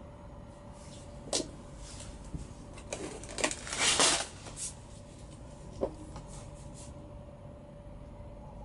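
Handling noises: a sharp knock, then a short burst of rustling and clatter about three to four seconds in, and another knock near six seconds, over a steady faint hum.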